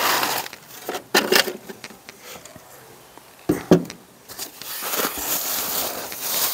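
Handling noises of radio gear and a cardboard box on a wooden table: scuffs and a few sharp knocks, the loudest a little past halfway, then the box and its packing rustling and crinkling near the end.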